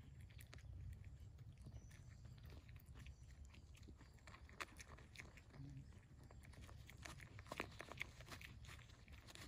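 A pig chewing and munching bait food, faint, irregular crunching and smacking, with a few sharper crunches in the second half.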